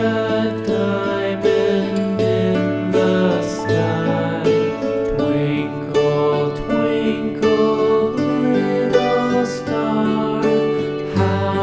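Background music with plucked strings, likely guitar, playing a steady rhythmic melody.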